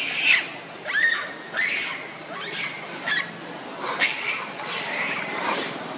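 Macaque calling: a series of short, high-pitched screeches, about one a second, each bending in pitch.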